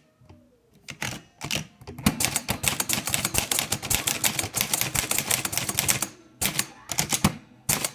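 Olivetti Lettera 32 manual typewriter typing: a few separate key strikes, then a fast run of keystrokes for about four seconds, then a few last strikes near the end.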